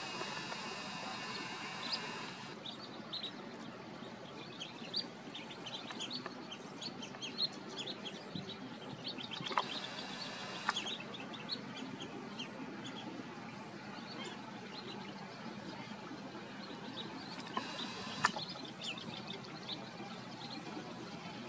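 Wild birds giving many short, high chirps in scattered quick runs over a steady outdoor hiss, with a few sharp clicks.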